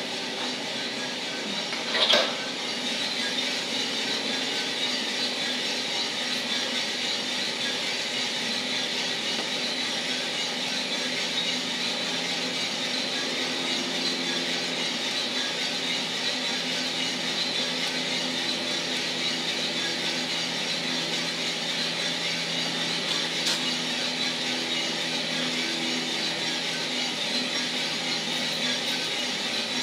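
Mill City 1 kg drum coffee roaster running steadily: a motor-and-fan hum under an even hiss, with one sharp knock about two seconds in.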